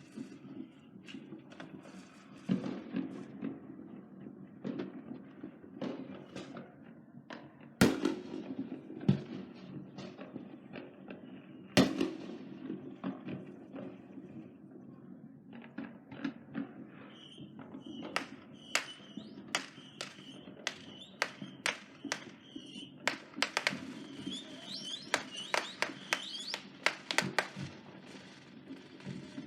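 Fireworks going off: a string of bangs and crackles, with two loudest booms about eight and twelve seconds in, and a fast run of cracks in the second half.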